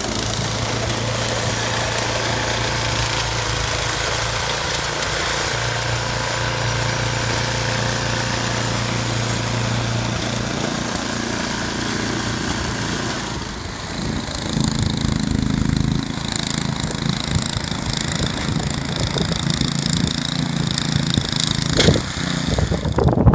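An engine running steadily. About 14 seconds in its sound changes and gets somewhat louder.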